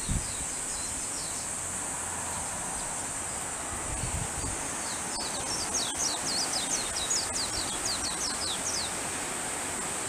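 Rural outdoor ambience: a steady high insect drone, with a quick run of short high chirps, about four a second, from about five to nine seconds in.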